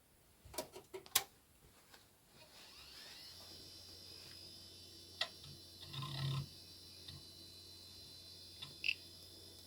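A few clicks, then an old ATA hard drive spins up: a rising whine that settles into a steady high tone over a low hum. Irregular ticking follows, with a short busy patch of it partway through, typical of the drive's heads seeking while the Amiga 2000 boots from it.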